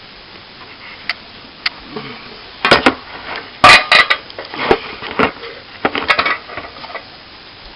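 Metal objects clinking and knocking in a series of sharp clatters, loudest about four seconds in.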